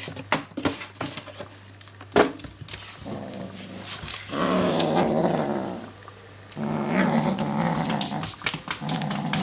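Bengal kitten growling low and long, twice, while guarding a toy it has caught as prey. Scattered clicks and rustles come before the growls, the loudest about two seconds in.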